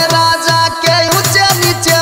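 Gurjar Rasiya folk-song backing track with an electronic beat. Deep bass drum hits, each dropping in pitch, come about three to four a second under a sustained melody line.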